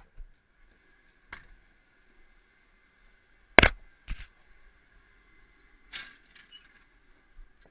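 A handful of sharp metallic knocks and clanks of hands, boots or gear against a tower crane's steel ladder and lattice during a climb. The loudest comes a little over three and a half seconds in, followed by a second about half a second later.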